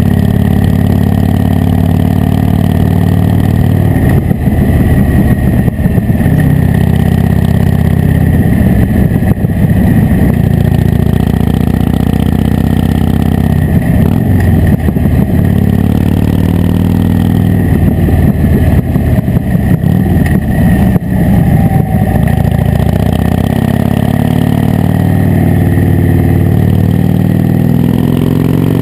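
Harley-Davidson Dyna Wide Glide's V-twin engine and exhaust running while the bike is ridden along, heard close-up from a camera mounted beside the engine. Its note turns rougher and then eases back several times as the throttle is worked.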